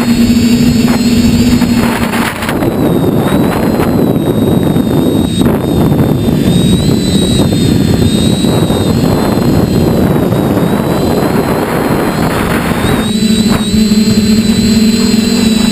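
Radio-controlled model aircraft's motor and propeller, recorded by its onboard camera: a steady buzzing whine that drops away about two seconds in, leaving a rushing of air over the airframe, then comes back about thirteen seconds in.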